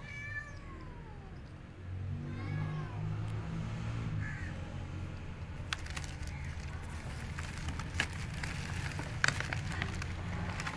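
Cat crunching dry kibble from a dish: sharp irregular clicks, most of them in the second half. A couple of falling calls sound near the start, and a low steady hum runs underneath from about two seconds in.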